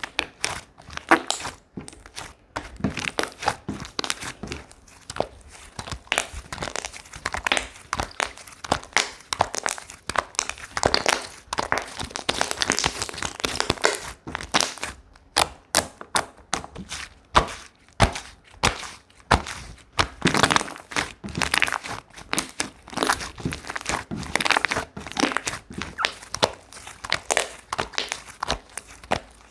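Slime being squished and stretched by hand, giving a dense, irregular run of crackling and sharp popping clicks.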